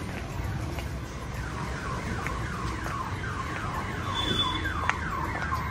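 A car alarm sounds a fast, repeating run of falling whoops, about three a second. It starts about a second in.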